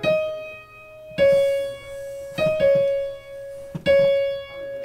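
Digital piano played by a young child, picking out a slow melody one note at a time; each note rings on and fades before the next is struck, about every second or so.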